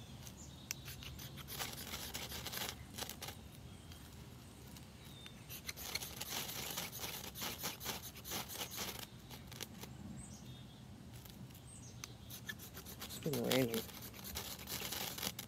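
Modified spine of a carbon-steel Morakniv Classic knife scraped down a ferrocerium rod in bursts of quick strokes, striking sparks onto wood shavings to light a fire. A brief voice-like sound is heard about two seconds before the end.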